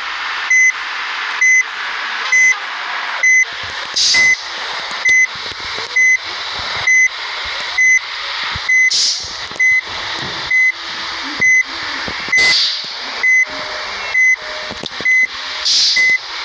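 Electronic beeper sounding short, identical high beeps about once a second, over a steady background hiss. Brief bursts of hiss cut in four times.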